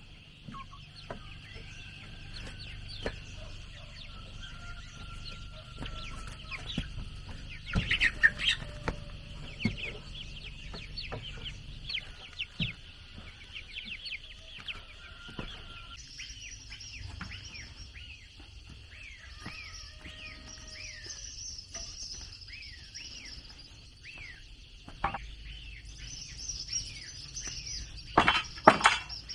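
Chickens clucking and small birds chirping over a steady high-pitched buzz, with a few sharp knocks, the loudest about eight seconds in and near the end.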